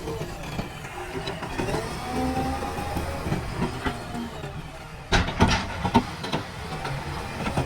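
JCB backhoe loader's diesel engine running, with a faint whine that shifts in pitch as the hydraulics work. About five seconds in, a quick cluster of loud knocks.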